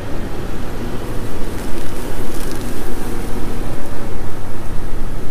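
Vehicle driving slowly along a rough grass trail: a steady, loud low rumble of engine and body noise picked up by a camera mounted outside the vehicle. It cuts off suddenly at the end.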